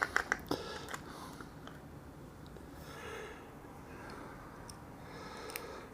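Quiet handling of small plastic model parts: a few faint light clicks near the start and near the end, with a soft breath about halfway through.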